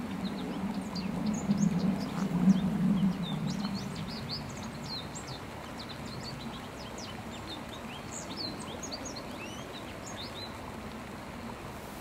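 American goldfinch twittering: a quick, continuous run of short, high chirps and sweeping notes that stops abruptly just before the end. A low hum fades out over the first four seconds.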